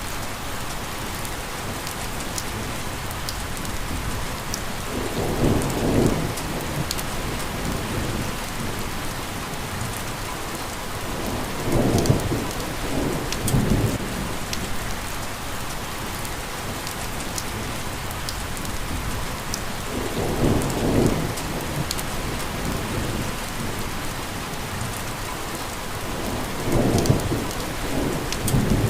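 Steady heavy rain hissing, with scattered sharp drop ticks, and four low rolls of thunder rumbling up and fading, spaced several seconds apart.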